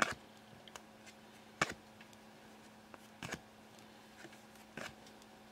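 Trading cards being handled and swapped by hand: four short clicks and rustles, about a second and a half apart.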